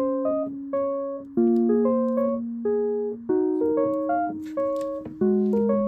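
Background piano music: a gentle melody of single notes over held low notes that change about every two seconds.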